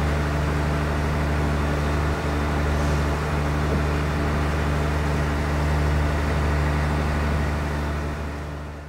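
Motor cruiser's engine running steadily underway, a constant low drone heard from inside the cabin; it fades out near the end.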